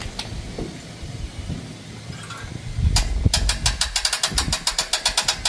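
Metal handling noise and a knock while an engine hoist sets an engine down, then a fast, even ratcheting clicking of about seven clicks a second from about three seconds in.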